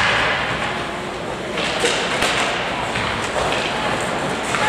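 Ice hockey game in a rink: scattered sharp knocks of sticks and puck over a steady hubbub of crowd chatter.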